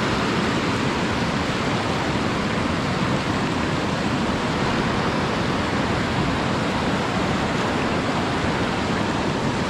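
River water flowing, a steady, unbroken rush.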